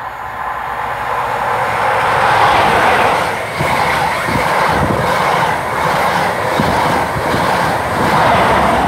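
CrossCountry High Speed Train, with Class 43 diesel power cars and its coaches, passing through the station at speed without stopping. A steady rush of wheels on rail and engine noise builds over the first couple of seconds and then stays loud, with scattered low knocks from the wheels.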